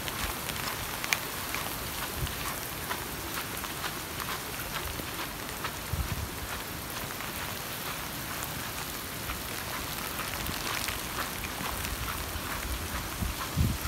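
Rain falling steadily on a surface: many small ticks over an even hiss.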